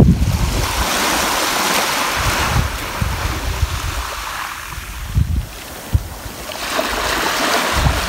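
Small waves washing up on a sand and pebble shoreline: a hiss of water swells in and runs back over the first three seconds, eases off, then builds again with the next wave near the end. Wind buffets the microphone with low, gusty rumbles.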